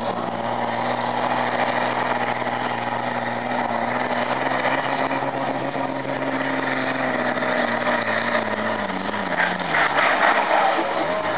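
Diesel pulling tractor's engine running hard at a steady high speed as it drags the weight sled. About eight seconds in, the engine note falls in pitch as the engine slows under the load.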